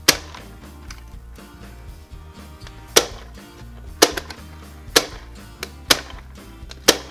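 Plastic toy popcorn maker clacking sharply as its handle is turned, dropping clay popcorn pieces, once near the start and then about once a second from three seconds in. Background music plays throughout.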